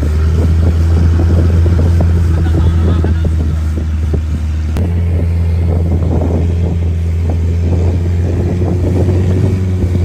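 Motorboat engine running steadily under way, a loud low drone with rushing noise over it; a sharp click about halfway through.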